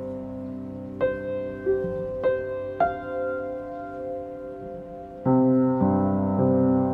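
Soft instrumental music: four piano notes struck one after another over held chords, then a louder, fuller chord comes in about five seconds in.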